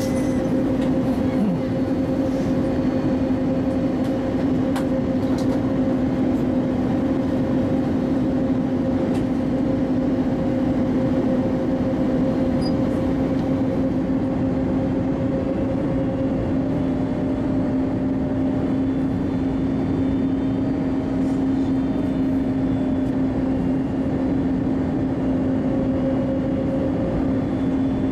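Cabin noise inside an Airbus A321neo descending on approach: a steady rush of engine and airflow noise with a constant low hum and a fainter higher tone above it.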